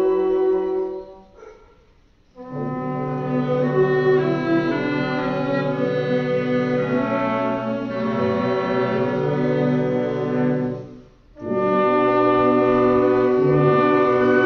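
Wind band of woodwinds and brass playing sustained chords of film-score music. The sound fades away to a pause about a second in, comes back in with full chords, and breaks off again briefly about eleven seconds in.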